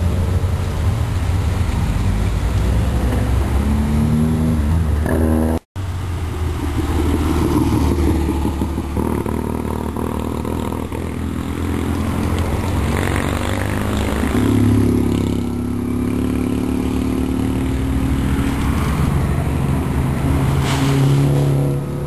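Rally car engines running as a queue of cars rolls slowly past one after another, with occasional revs rising and falling. The sound cuts out briefly about six seconds in.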